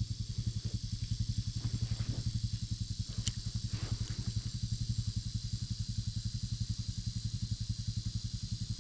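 A small engine idling steadily, a fast, even putter, with a steady high hiss behind it.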